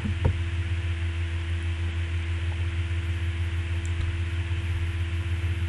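Steady low electrical hum with an even hiss, the background noise of the recording, with a single short click shortly after the start.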